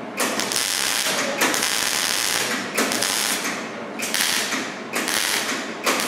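MIG welder arc crackling on sheet steel in short welds of about a second each, five in a row with brief pauses between. It is filling the pinholes in the welded seams of a car door patch panel.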